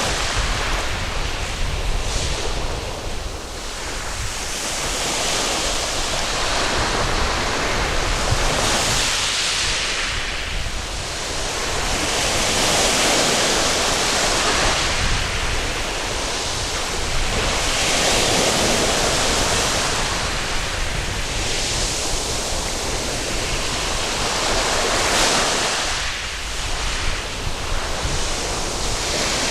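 Sea waves breaking and washing up a sandy beach, a continuous rushing that swells and ebbs every few seconds.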